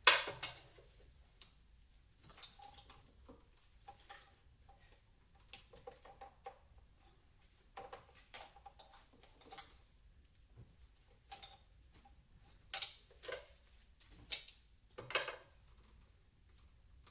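Scattered light clicks and taps of tools and metal as the water neck manifold on a Mustang Cobra engine is pried loose, with a sharper click right at the start.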